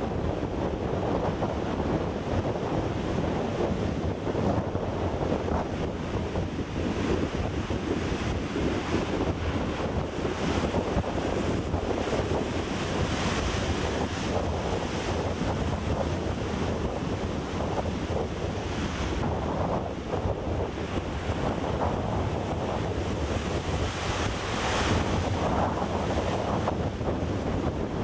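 Heavy storm surf breaking and foaming over a rocky shore, a continuous rush of water that swells now and then as bigger waves come in, with wind on the microphone.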